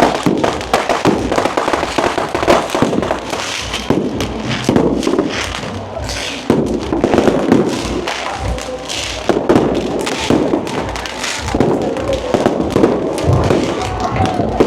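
Fireworks and firecrackers going off, many sharp bangs and crackles in quick, irregular succession, over voices and music.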